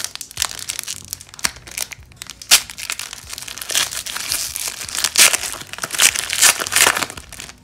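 Foil wrapper of an O-Pee-Chee Platinum hockey card pack being torn open and crinkled by hand: irregular crackling rustles, with a louder rip about two and a half seconds in and several more in the second half.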